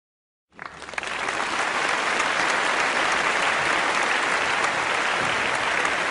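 Applause from a crowd, a dense patter of many clapping hands that starts about half a second in and quickly builds to a steady level.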